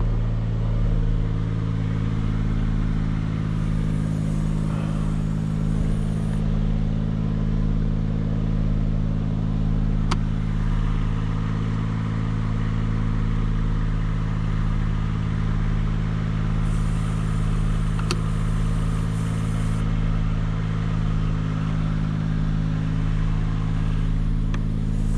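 Engine of a tree crew's aerial lift running steadily at a constant speed, a low even drone.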